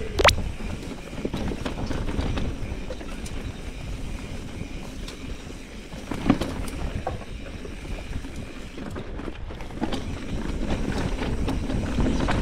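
Electric mountain bike riding over a rough, rocky trail: steady rumble of tyres on stone and gravel with rattling from the bike and wind on the microphone. There are sharp knocks just after the start and again about six seconds in.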